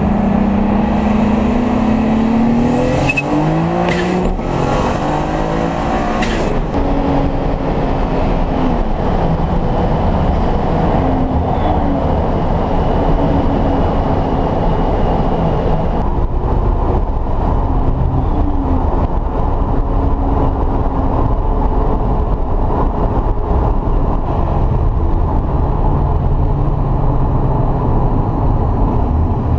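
Turbocharged VW VR6 engine heard from inside the cabin under hard acceleration. The engine note climbs and drops back at the gear changes, and a high turbo whistle rises in the first several seconds. It then settles into a loud, steady drone at speed.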